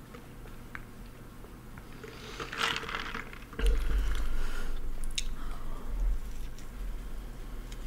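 Close-miked eating sounds: a slurp through a drinking straw, a knock about three and a half seconds in as the cup is set down, then chewing and a bite into a hamburger.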